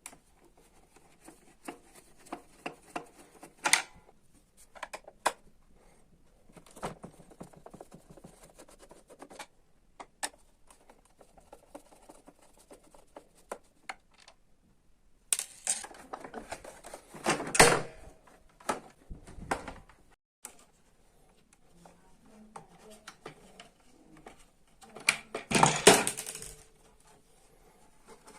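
Irregular clicks, knocks and scraping of a vacuum cleaner's parts and tools being handled during repair, with two louder bursts of rattling and scraping in the second half. The cleaner's motor is not running.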